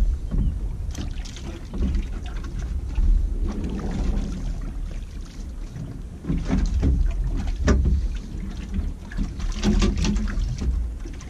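Water slapping against the hull of a small open boat as it drifts, with wind rumbling on the microphone and a few knocks of fishing tackle against the boat.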